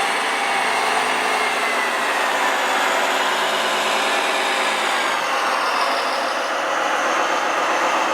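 Small electric motors and gears of radio-controlled model machinery running steadily, with a whine that slowly glides in pitch.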